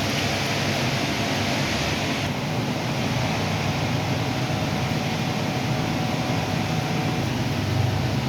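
Steady hiss and low hum of a TIG welding setup running. The upper hiss drops off abruptly a little over two seconds in.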